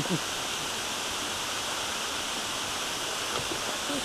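Waterfall rushing steadily: a constant wash of falling water.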